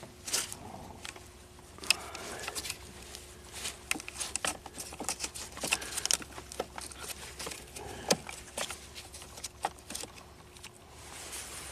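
Transmission control module wiring connector being unplugged by gloved hands: a run of small, irregular plastic clicks and rattles from the connector and its locking lever, with a faint steady hum underneath.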